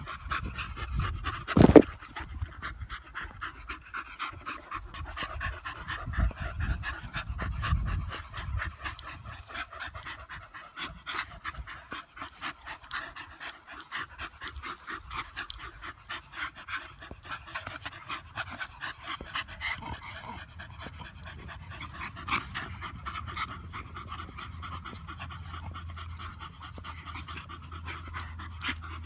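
Dogs panting hard and fast in quick repeated breaths while they pull against each other in a tug-of-war. One sharp, loud knock comes about two seconds in.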